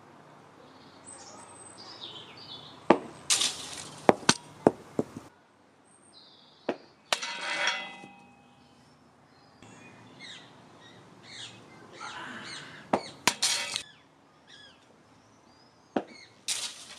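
Sharp knocks and clatters of a cricket ball being bowled in a practice net, coming in several clusters as the ball lands on the artificial pitch mat and is stopped. Birds chirp faintly between them.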